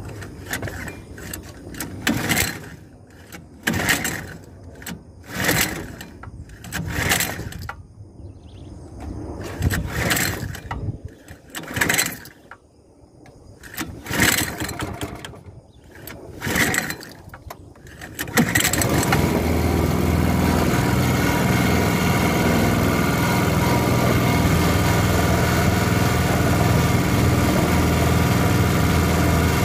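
Small 3.5 hp petrol engine on a boat being pull-started again and again, a pull about every two seconds, before it catches a little past halfway through and then runs steadily.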